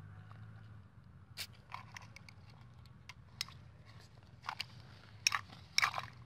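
Metal spoon clinking and scraping against a glass mug as it is worked into cut red dragon fruit. It makes scattered sharp clicks that come more often and louder in the second half.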